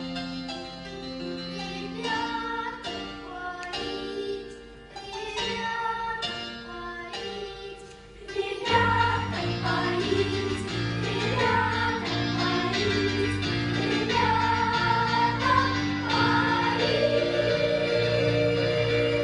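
Children's choir singing a lively folk-style song with instrumental accompaniment. About nine seconds in, the sound fills out and grows louder, with a strong bass entering.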